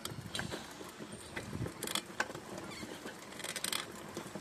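A bicycle rolling along a paved road, with irregular small rattles and clicks in short clusters over a low steady noise.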